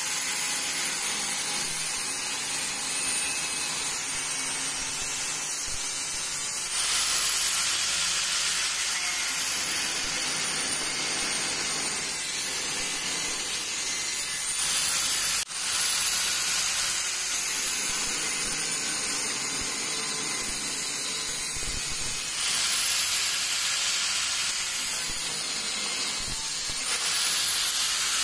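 Angle grinder with a cutting disc cutting through the mounting flange of a Honda CG125 carburetor held in locking pliers. A steady hiss of the disc on metal, with the motor's high whine sagging and rising as the disc bites and eases, and one brief break about fifteen seconds in.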